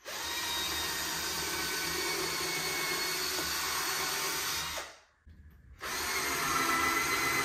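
Cordless drill running under load, driving screws into wooden bed slats: a steady run of about five seconds, a short stop, then a second run of about two seconds.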